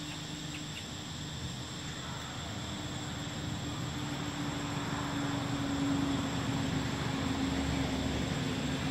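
Steady high-pitched insect drone, with a low steady hum underneath that grows louder from about halfway through.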